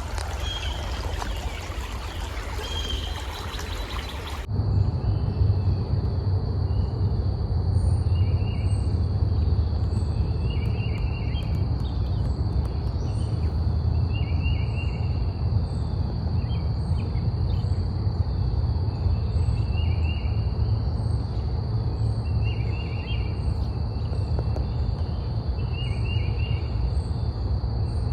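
Outdoor nature sound: running water rushes for about four seconds, then cuts to a steady high insect trill like crickets. Short bird chirps repeat every second or two over a constant low rumble.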